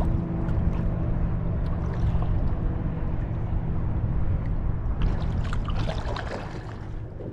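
Lake water lapping and splashing against a kayak's hull as it drifts into the shallows, over a steady low hum. The sound grows crackly about five seconds in and fades away toward the end.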